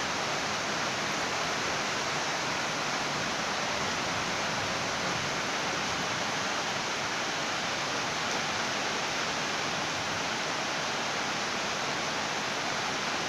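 Rain falling as a steady, even hiss, with no thunder.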